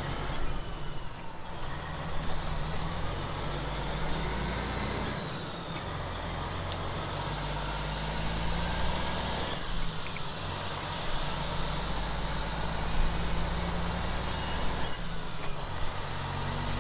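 Semi truck's diesel engine heard from inside the cab as the truck pulls away and picks up speed, climbing in pitch and then dropping back at each upshift, about every five seconds.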